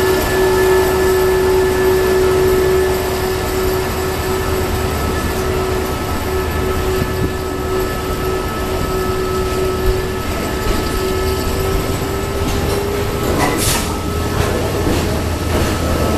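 Container flat wagons of a freight train rolling past, a steady rumble of steel wheels on rail with a sustained whine that rises slightly and fades about thirteen seconds in. A sharp click comes soon after.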